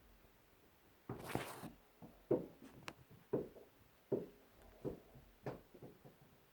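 A brief rustling scrape about a second in, then a run of dull, muffled knocks, roughly one a second with lighter taps in between: the recurring night-time knocking.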